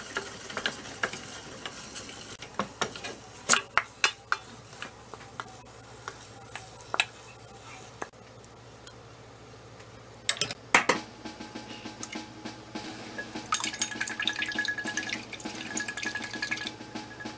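Wooden spatula stirring and knocking against a metal saucepan as choux pastry dough is cooked into a single ball, with scattered sharp knocks and scraping.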